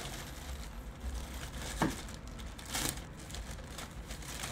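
Plastic mailer bag crinkling and rustling as it is handled and pulled open by hand, with a couple of louder crackles about two and three seconds in.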